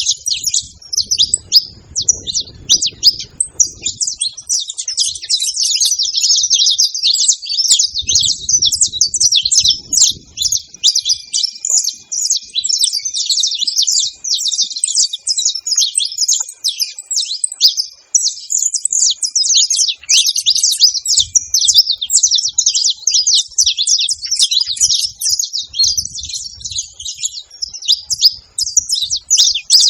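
A flock of saffron finches chirping and twittering together in a dense, unbroken chorus of high, quick notes.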